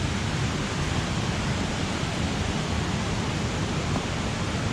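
Steady rush of a waterfall, an even, unbroken noise with no separate splashes or changes.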